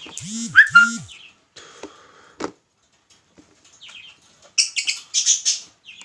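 Masked lovebird calling: a couple of short calls at the start, then a quick run of high-pitched chirps about four and a half seconds in.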